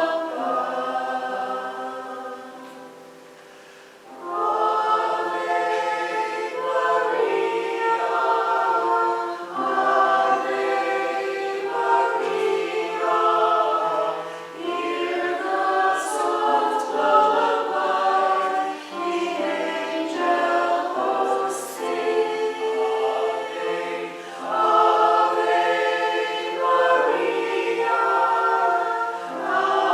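Church choir singing a Christmas anthem in several parts. One phrase fades out about three seconds in, and the next phrase begins a second or so later.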